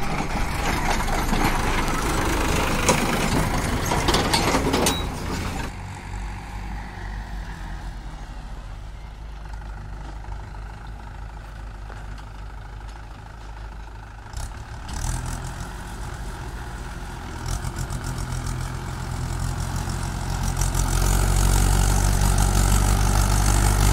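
Diesel tractor engines running as tractors pull trolleys. First a Sonalika tractor passes close by. Later a red Mahindra tractor pulling a loaded trolley of sand comes nearer, and its engine gets louder over the last few seconds.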